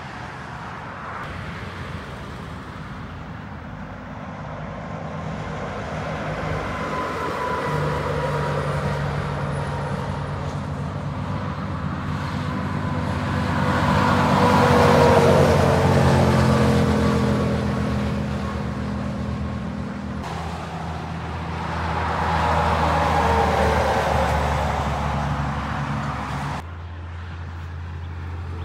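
Heavy semi-trailer trucks going past on a motorway, the engine and tyre noise swelling and fading three times as each one passes, with the pitch sliding down as it goes by. The sound changes abruptly twice, near 20 s and 27 s.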